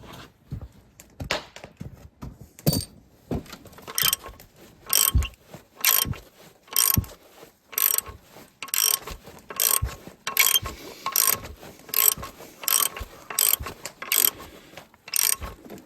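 Ratchet wrench clicking in short bursts, about one stroke a second, as it turns the bolt of an improvised puller to draw a main bearing block out of a diesel engine block. A few irregular metal knocks come first while the puller is set up.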